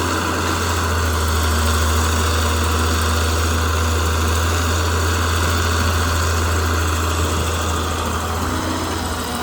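A heavy diesel engine, an earthmoving truck's or excavator's, idling steadily with a deep, even drone.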